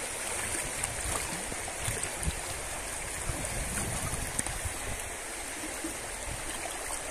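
Shallow river rushing steadily in a strong current, with a little splashing of water around a wader.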